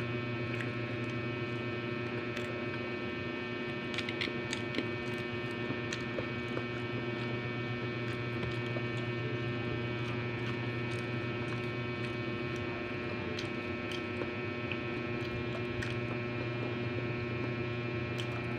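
Steady electrical hum throughout, with faint mouth clicks from chewing pizza with closed lips, a few of them around four to five seconds in.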